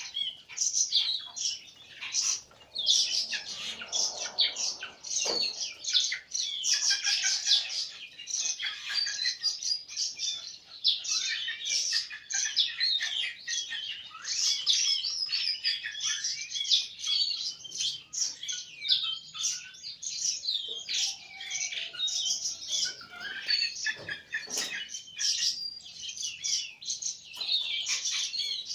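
Small birds chirping non-stop during a feeding, a dense chatter of rapid, high-pitched chirps overlapping one another.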